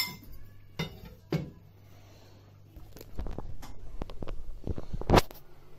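A large kitchen knife cutting cooked pork fillet on a wooden chopping board: a few sharp knocks of the blade on the board in the first second and a half. After that comes a denser run of rumbling, rubbing and knocking as the camera is handled and moved, with one louder knock near the end.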